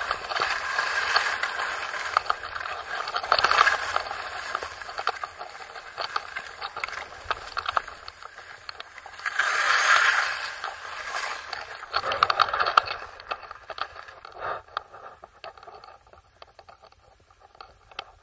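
Skis sliding and scraping over snow in uneven surges, loudest about halfway through and fading toward the end.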